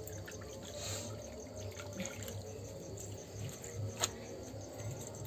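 Water splashing and trickling onto a floor as it is poured out by hand, with one sharp click about four seconds in.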